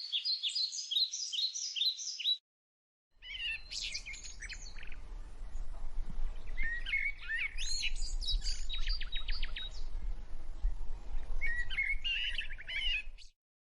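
Quaker parrots chirping in quick, repeated high notes and short rapid trills. The sound cuts out briefly about two and a half seconds in, then the chirping resumes over a low rumble.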